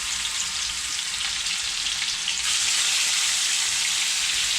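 Mahi fillets sizzling as they fry in a hot pan: a steady frying hiss that gets louder about halfway through.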